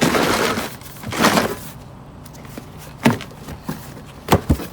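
Handling noise from unpacking new brake shoes: two rustling scrapes in the first second and a half, then a few sharp knocks near the end.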